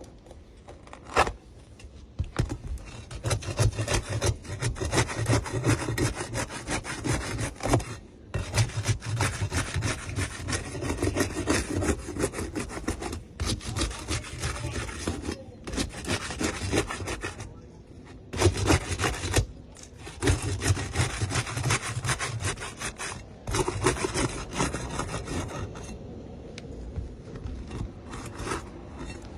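Wood being sawn in several bouts of rapid scraping strokes, broken by short pauses, with a sharp click about a second in.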